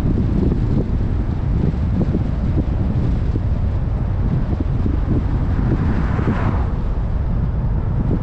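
Wind buffeting the microphone over the low road and engine rumble of a moving car. About six seconds in, an oncoming car swishes past.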